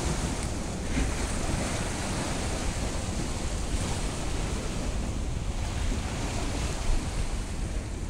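Sea waves washing and breaking against the stone blocks at the water's edge, a steady surging hiss, with wind rumbling on the microphone.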